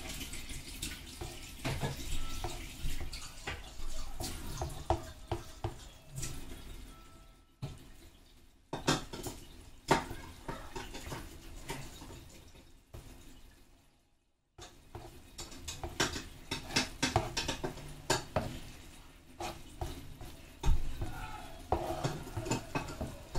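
Metal cooking utensils clinking and scraping against a pan and dishes in irregular knocks, with two brief breaks.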